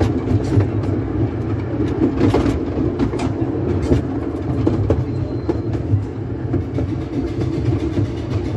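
Miniature steam railway train running along the track, heard from on board: a steady rumble of wheels on rails with a few clicks.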